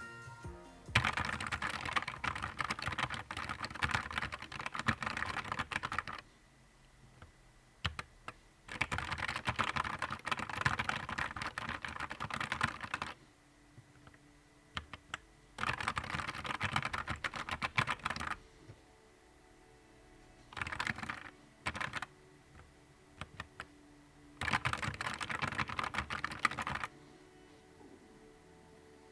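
Fast typing on a Nuphy Air 75 V2 low-profile mechanical keyboard: five runs of rapid key clacks, broken by short pauses, with quiet background music.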